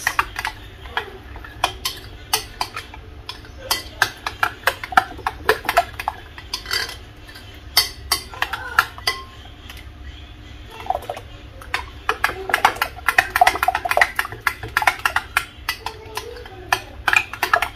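Metal spoon stirring yogurt in a bowl, clinking quickly and repeatedly against the bowl's sides, with a short pause a little past the middle.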